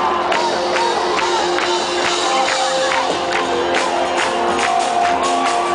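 Upbeat music with a steady beat and sustained tones, with voices singing and shouting along.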